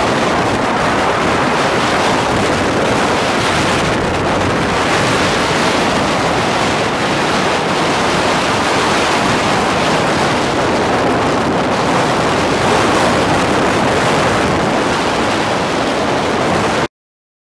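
Steady rush of wind and road noise from a moving car, cutting off abruptly near the end.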